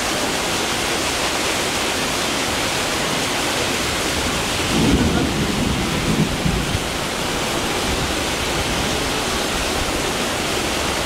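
Heavy rain hissing steadily on the road and the awning overhead. About five seconds in there is a short, uneven low rumble lasting about two seconds.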